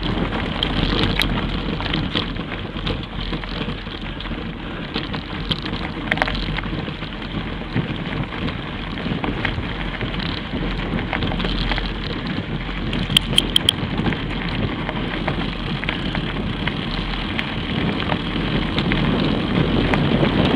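Knobby mountain bike tyres rolling and crunching over loose gravel, with the bike rattling and some wind on the microphone. About two-thirds of the way through there is a quick run of four sharp clicks.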